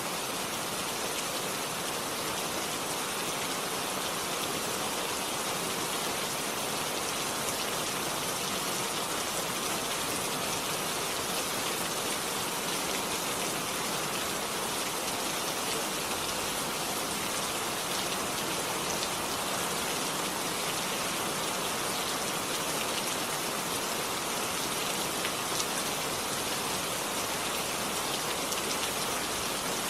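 Steady rainfall, an even hiss of rain with faint scattered drop ticks, unchanging throughout.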